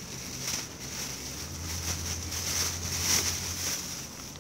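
Plastic bag rustling and crinkling as it is handled and opened, with a low hum for about two seconds in the middle.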